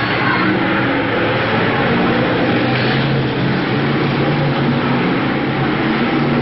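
A pack of BriSCA F1 stock cars racing around an oval track, many engines running loud and steady together, with several engine notes overlapping.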